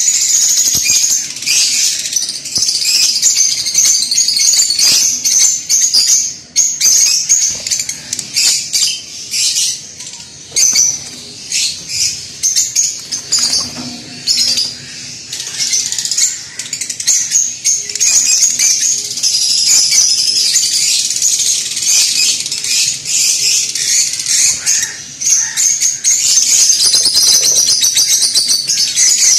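Lovebirds in an aviary chattering continuously: many birds' high-pitched chirps and squawks overlapping. The chatter eases a little between about ten and sixteen seconds in.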